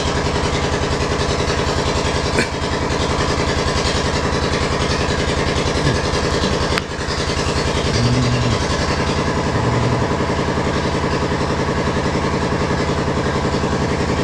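An engine running steadily with a rapid, even pulse, with two brief knocks, about two and a half and seven seconds in.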